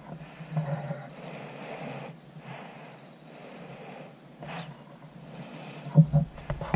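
A person's heavy breathing close to the microphone, in slow soft puffs, while aiming a rifle through its scope. A few sharp knocks about six seconds in, as the rifle is moved.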